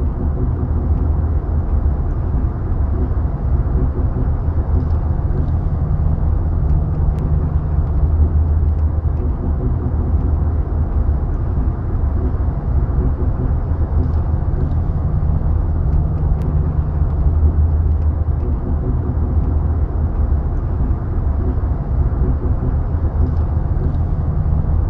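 BMW E36 on the move: a steady low rumble of the car, carrying the unusual knocking noise the owner likens to driving over train tracks.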